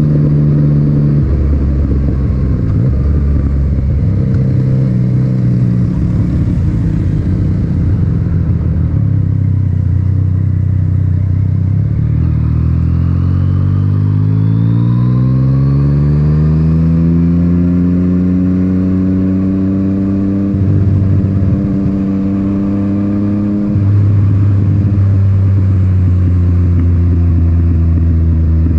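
Yamaha MT-09's inline three-cylinder engine through an Akrapovic titanium exhaust, heard from on board while riding. The engine note drops just after the start, then rises steadily in pitch for several seconds as the bike accelerates, holds, and near the end falls to a lower, louder note.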